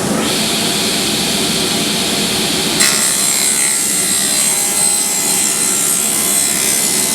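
SawStop table saw running. About three seconds in, the blade starts cutting into a board and the sound turns higher and brighter as it rips through the wood.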